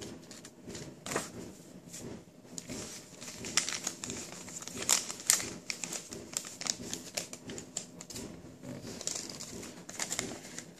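A sheet of paper rustling and crinkling as it is folded and creased by hand, with many irregular little crackles and taps.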